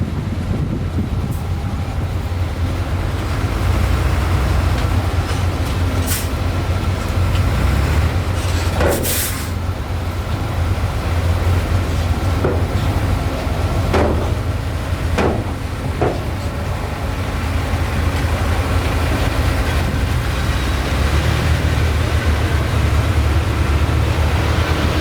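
Heavy earthmoving machinery running: a steady, loud diesel rumble with several short sharp clanks and squeaks scattered through it.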